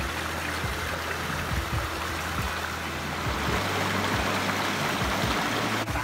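Shallow stream running over rocks in small cascades: a steady rushing and splashing of water.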